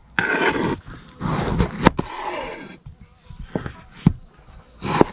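A kitchen knife working on a wooden cutting board. Two short stretches of scraping and rustling as the chopped onion and the tomato are handled end in a sharp knock, then a few single knocks of the blade striking the board as a tomato is cut.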